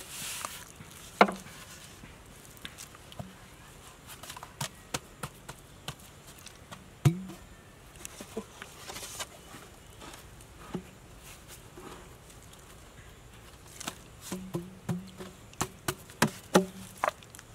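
Green bamboo tubes knocked against each other and set down on wet mud: irregular sharp hollow knocks, louder about a second in and about seven seconds in, with a quick cluster of knocks near the end and soft handling sounds between.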